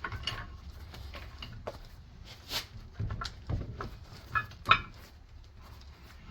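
Clicks and clunks of metal parts on a cast-iron bench vise being handled and repositioned, with a handful of sharp knocks, the loudest about three-quarters of the way through.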